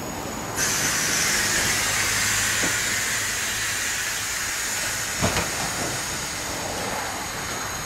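Soviet-era D1 diesel multiple unit rolling past and drawing away: a steady hissing rush that starts suddenly about half a second in, over a low engine hum that fades out around five seconds in. A single wheel knock over a rail joint comes about five seconds in.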